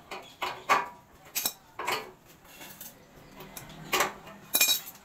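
Metal parts and hand tools clinking and knocking against the steel wheel axle and frame of a tricycle sidecar: about seven separate sharp metallic knocks, the last few near the end ringing briefly.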